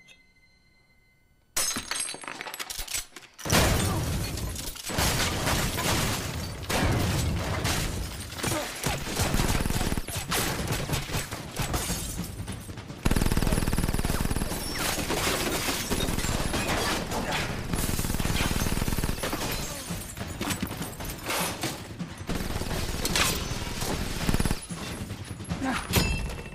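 Film gunfight: sustained rapid gunfire with glass and furnishings shattering, starting abruptly after about a second and a half of near silence.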